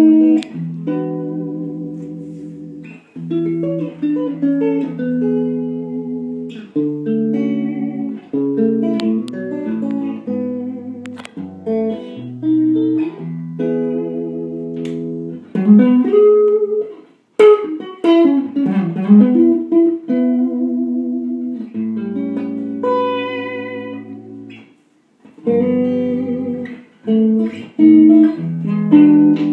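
Gretsch G6128TDS Duo Jet electric guitar played solo: chords and single-note lines in phrases with short breaks, the notes bending and wavering in pitch about halfway through.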